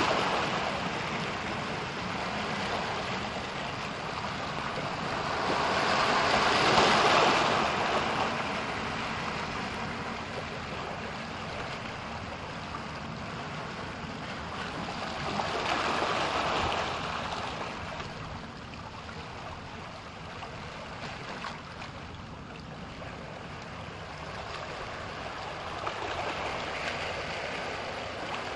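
Ocean waves washing in, a steady rush of surf that swells into a louder break about every nine or ten seconds.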